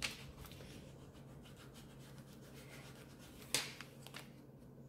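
Fingers handling and rubbing a transfer-tape sheet over layered vinyl sticker pieces: faint scratchy rubbing, with a click right at the start and one sharper crackle of the sheet about three and a half seconds in.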